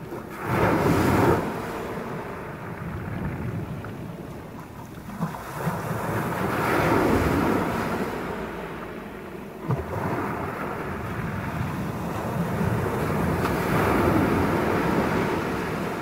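Sea waves breaking and washing up a shingle beach, the surf surging three times, loudest about a second in and again around seven and fourteen seconds in. Two short knocks stand out near five and ten seconds.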